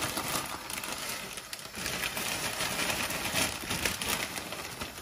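A pot of water at a rolling boil, bubbling and crackling steadily, as dry chow mein noodles are tipped in from a plastic packet.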